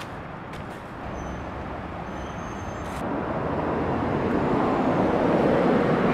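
Road traffic noise: a steady rumble and hiss that grows louder about halfway through.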